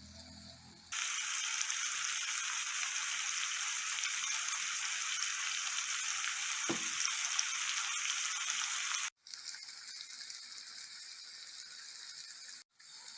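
Food sizzling as it fries in a pan: a steady hiss that starts about a second in, cuts off suddenly near nine seconds and goes on more quietly afterwards.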